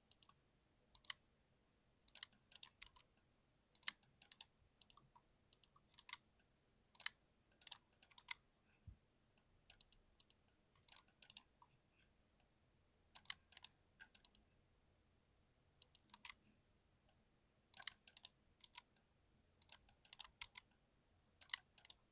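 Mechanical keyboard with TTC Golden Red linear switches being typed on: quick runs of key clacks in bursts, with short pauses between them.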